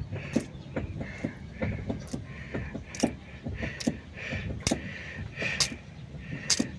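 Irregular metallic clinks and knocks from hand tools and metal parts being handled during repair work, several a second, some of them ringing.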